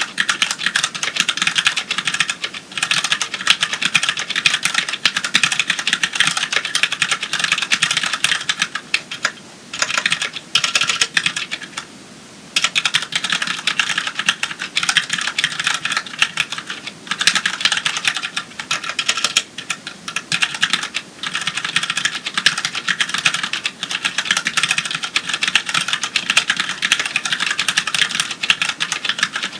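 Fast, continuous typing on a Ducky Mini mechanical keyboard with Cherry MX Brown switches: a dense patter of tactile, non-clicky keystrokes, broken by two short pauses about halfway through.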